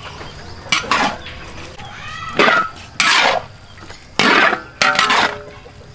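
Long metal spatula scraping and knocking against a large wok as pork, carrots and greens are stir-fried, in repeated quick strokes about once a second, some ringing briefly.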